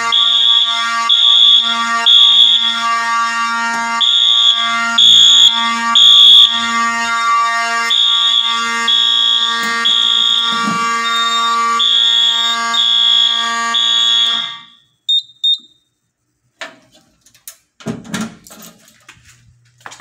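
Wheelock fire alarm horns sounding together: a loud, buzzy horn tone with a high part that pulses in quick repeating blasts. About fourteen seconds in it cuts off suddenly as the alarm is silenced at the panel. A few clicks and handling knocks follow.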